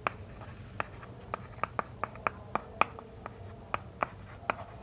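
Chalk writing on a chalkboard: an irregular series of sharp taps and short strokes as the letters are chalked on.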